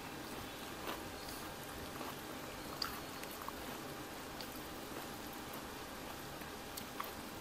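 A person eating instant noodles close to the microphone: soft wet chewing and slurping, with a few short, sharp mouth clicks scattered through it.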